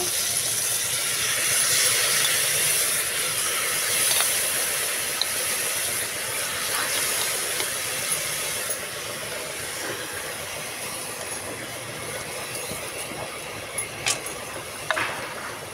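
Rice sizzling and hissing as it fries in hot ghee with onions and peas in an aluminium pressure cooker, the sizzle slowly quietening. A few light clicks near the end.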